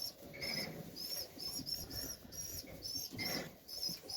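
Young pigeons in the loft peeping: a steady run of short, high-pitched squeaks, about three or four a second, over a faint rustle.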